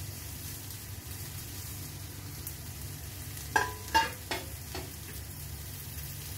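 Chopped shallots frying gently in oil in a steel kadai over a gas flame: a steady faint sizzle over a low hum. Around the middle, four quick metallic clinks of steel utensils ring out.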